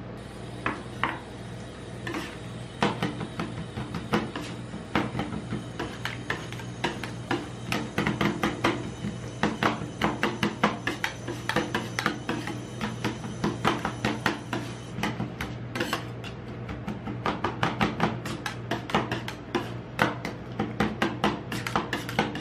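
Metal spatulas chopping and scraping on a steel ice-cream-roll cold plate, working chocolate pieces into the freezing cream: a run of quick metallic taps, sparse at first and faster and steadier from about eight seconds in.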